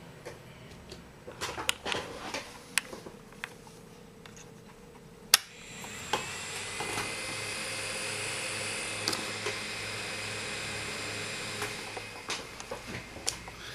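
Keyboard keys clicking, then a sharp click, after which the robot's small electric wheel motors start and run with a steady whine for about six seconds before stopping. Scattered clicks and knocks follow near the end.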